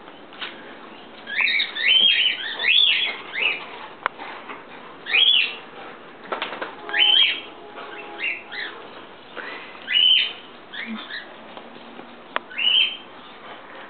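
Repeated short, high chirping calls from an animal, coming in quick clusters of two or three, with a few faint clicks in between.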